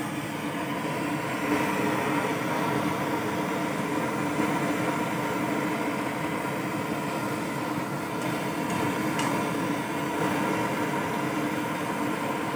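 Steady rushing hiss of an LPG gas ring burner firing under a wok of simmering chicken broth, with a faint steady hum under it.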